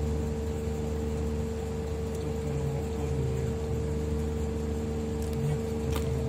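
Steady machine hum: a constant mid-pitched tone over a low drone, unchanging throughout.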